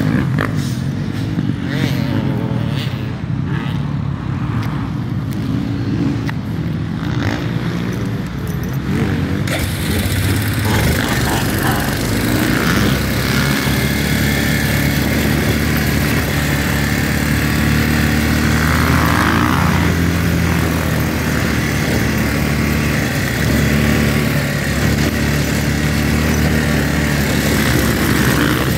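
Engine of an off-road ATV running steadily under way on a dirt trail. About ten seconds in, the wind and trail noise grows louder as the vehicle picks up speed.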